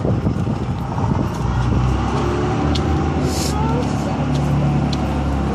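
A motor vehicle's engine running close by in the street, a steady low drone that sets in about a second in, with a short hiss about three seconds in.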